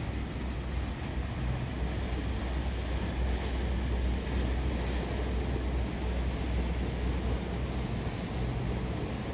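Steady low rumble of a motor yacht's engines under way, mixed with water wash and wind buffeting the microphone.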